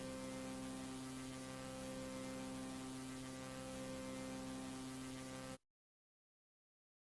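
Steady electrical hum of several fixed tones with hiss over it, on a VHS-style tape recording; it cuts off abruptly about five and a half seconds in.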